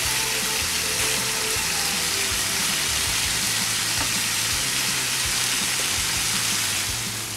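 Pork chops frying in hot oil in a pan: a steady, dense sizzle that drops a little just before the end.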